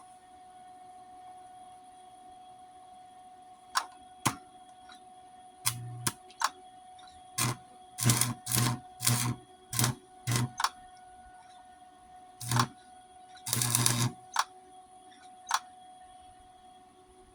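Electric welder striking in a dozen or so short bursts of crackle and buzz, with one longer burst of about a second near the end, laying weld in stitches on thin steel of a Snapper mower deck to fill a hole that was burned through.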